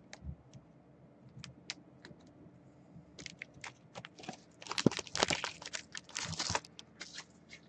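Trading cards and their plastic sleeves being handled: scattered light clicks and crinkles, with a denser run of crinkling about five seconds in and a shorter one near six and a half seconds.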